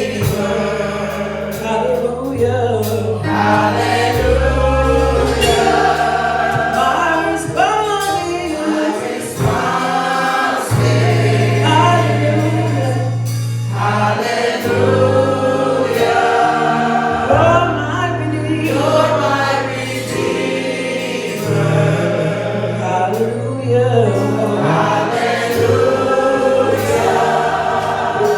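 Gospel choir singing with live band accompaniment, carried over long held low bass notes that change every second or two.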